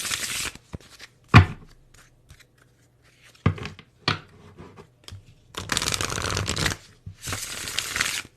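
Tarot cards being shuffled and handled in short rustling spells, with a sharp tap about a second and a half in and two longer stretches of shuffling near the end.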